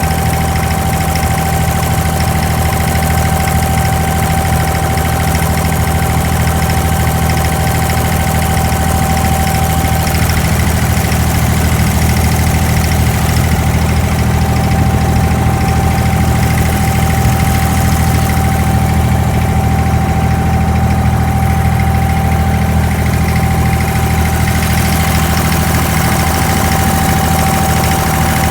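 Abra water taxi's diesel engine running steadily, a loud, even low drone with a steady higher whine over it.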